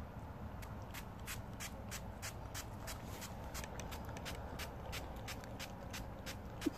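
Small plastic pump spray bottle of plain water spritzed over and over in quick hissing puffs, about three to four a second. A brief squeak comes right at the end.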